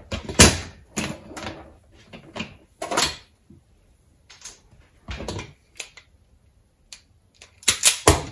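Tools and wire handled on a wooden worktop, with irregular clicks and knocks. Near the end comes a quick cluster of sharp clicks as hand wire strippers close on a length of insulated wire to strip it.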